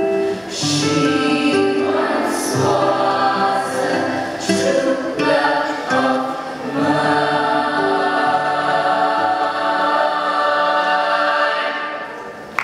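A mixed school choir singing in harmony, ending the song on one long held chord that fades away near the end.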